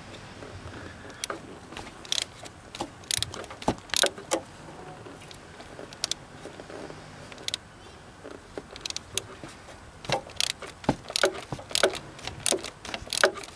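Ratchet wrench clicking in short runs as a 27 mm socket undoes the oil filter housing cap, with sharp taps of metal tool on metal; the clicks come in bursts early on and again through the last few seconds, with a quieter stretch between.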